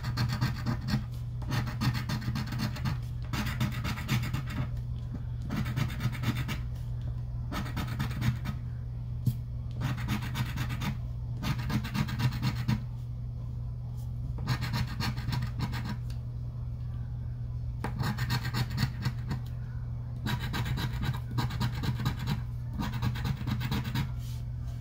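Scratch-off lottery ticket being scratched with a round scratcher tool: repeated bursts of quick rasping strokes, each a second or two long with short pauses between, over a steady low hum.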